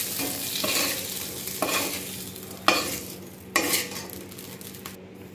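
Wooden spatula scraping and scooping fried okra pieces across an aluminium kadai, with the oil sizzling. There are five or six sharp scrapes about a second apart, and the sizzle dies down near the end as the pan is emptied.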